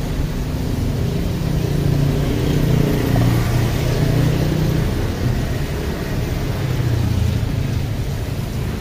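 Street traffic: motor vehicle engines rumbling past close by, the sound swelling and fading twice.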